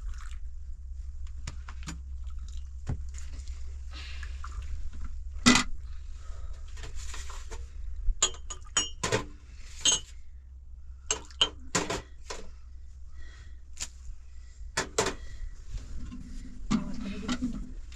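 Scattered sharp clinks and knocks of hard objects, a few ringing briefly, over a steady low hum.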